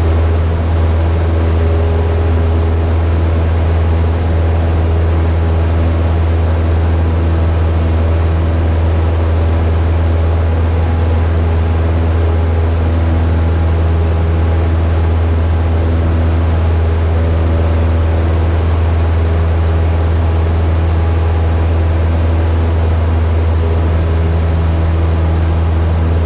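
Cessna 172's four-cylinder piston engine and propeller running at takeoff power, heard from inside the cabin as a loud, steady drone through the takeoff and climb-out.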